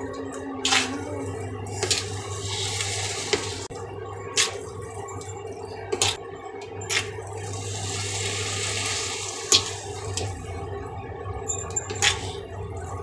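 Chowmein noodles and vegetables sizzling in a non-stick wok as a spatula tosses them, the sizzle swelling twice. The spatula knocks against the pan about eight times, over a steady low hum.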